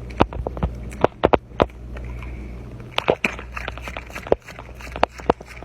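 A run of irregular sharp clicks and crunches, about a dozen, over a steady low hum.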